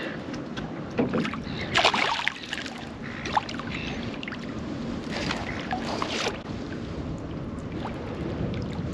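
Hooked black bream splashing at the water surface beside the boat as it is played in, in short bursts about two seconds in and again around five to six seconds, over a steady wash of wind and water.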